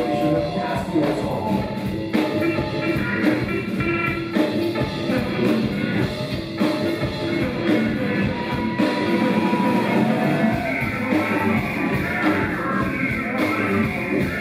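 Rock band playing live, a dense full-band passage with a steady drum beat.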